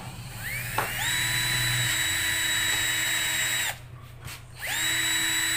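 JR Kawasaki CD12V 12-volt cordless drill boring into a block of wood with a twist bit. The motor whines up to speed, runs steadily for about three seconds and stops, then runs again near the end.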